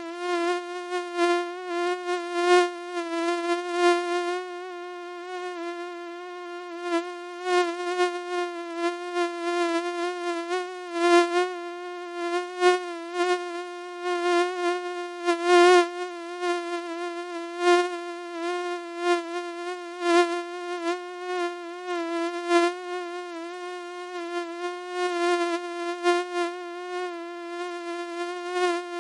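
Mosquito whining: one steady, high-pitched buzz with many overtones, wavering slightly in pitch and swelling and fading in loudness every second or so.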